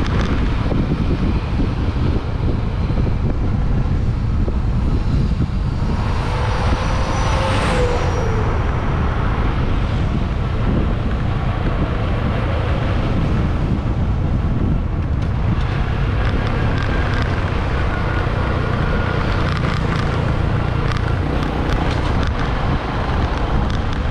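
Wind buffeting the camera's microphone over a motorbike engine running at cruising speed, a steady low rumble. About seven seconds in, a brief louder swell with a falling pitch.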